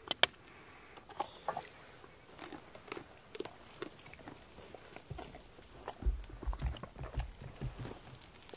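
A person eating cake, chewing with soft irregular clicks and mouth sounds that grow fuller about six seconds in.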